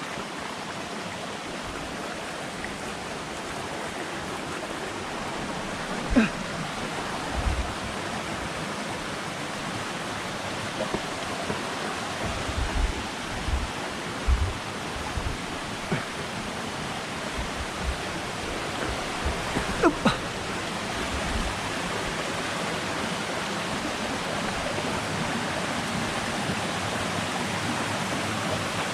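Waterfall water rushing steadily over rock, an even unbroken noise, with a few scattered low knocks and bumps, especially in the middle stretch.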